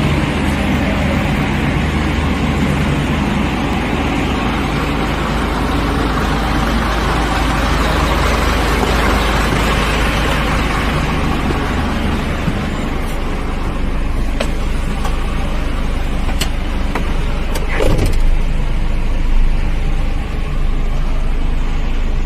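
Isuzu tractor truck's diesel engine idling steadily. A few sharp clicks and a knock come about two-thirds of the way through.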